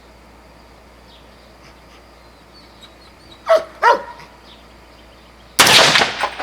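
A dog barks twice in quick succession. About two seconds later there is a loud, sudden burst of noise lasting under a second.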